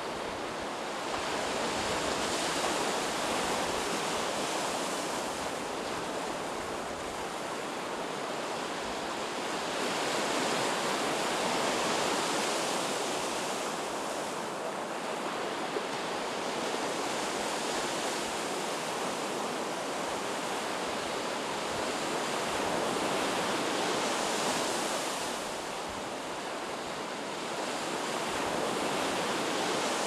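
Sea surf on a sandy beach: waves breaking and washing in, the rush swelling and easing in long surges about four times.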